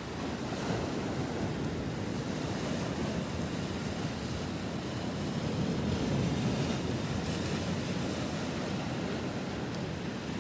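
Steady rush of wind on the microphone mixed with ocean surf, swelling a little about six seconds in.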